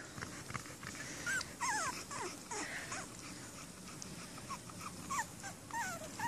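Four-week-old American pit bull terrier puppies whimpering: a string of about a dozen short, high squeaky whines, each bending down or up in pitch.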